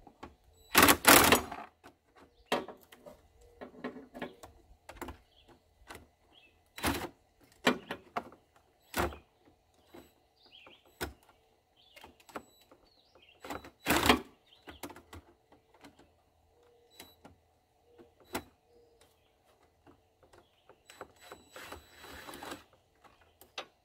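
Hand tools and parts clicking and knocking while fasteners and pieces are worked loose on a car's front end: irregular scattered clicks, with louder clatters about a second in and again about fourteen seconds in, and a rustling scrape near the end.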